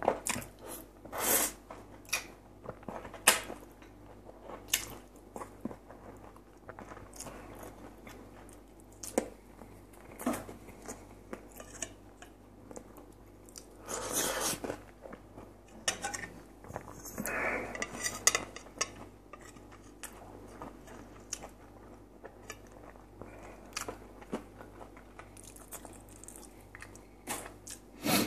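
Close-up chewing and biting as a man eats lightly salted pickled tomatoes and fried potatoes, with wet mouth sounds. A fork clicks and scrapes against the plate every so often.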